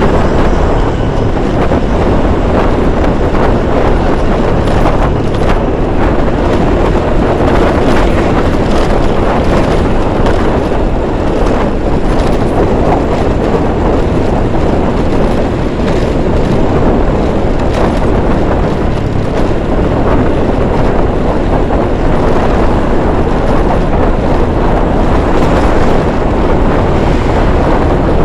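Steady riding noise from a Honda Beat scooter moving through traffic: its small engine and tyres on the road, mixed with wind rushing over the microphone.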